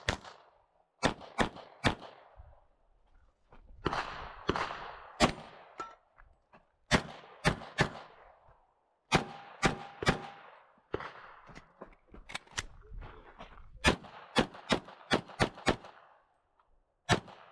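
Glock pistol shots fired in quick pairs and threes at close range during a practical-shooting stage, some two dozen in all, with short pauses between strings. A fast string of about six shots comes near the end. Each crack is followed by a brief echo.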